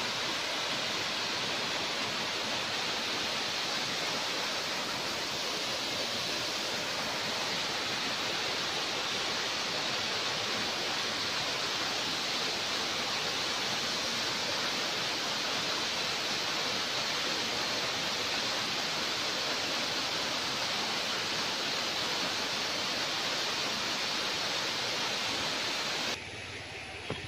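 Waterfall rushing steadily, several streams falling over a rock face into a pool. Near the end the rush drops suddenly to a lower level.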